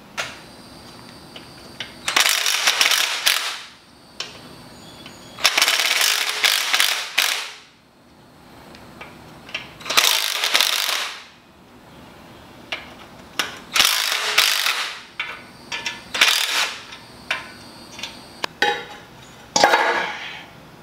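Ratchet wrench clicking in about six runs of one to two seconds each, with short pauses between, as bolts are worked on an engine.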